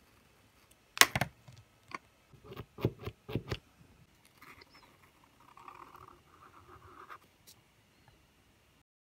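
A Posca paint marker handled and tapped against paper, with a loud sharp click about a second in and a quick run of taps, then its tip scratching softly across the paper as it draws an outline.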